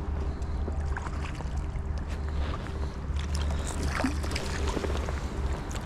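Light water splashing and lapping, with scattered small clicks, over a steady low wind rumble on the microphone, while a small hooked rainbow trout is played and brought in on a fly line.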